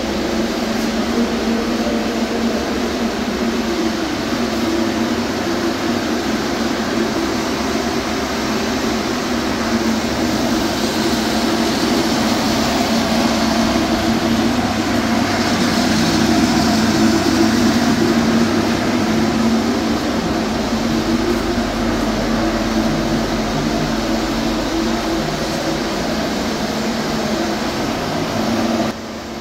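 Steady rush and low drone of large ventilation or extraction fans running in a boat paint shed.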